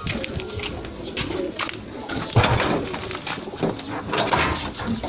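Domestic pigeons cooing, with scattered knocks and rustles.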